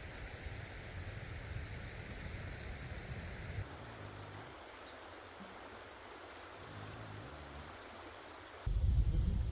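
Steady rushing hiss of a flowing creek. It drops quieter about three and a half seconds in, and a low rumble comes up near the end.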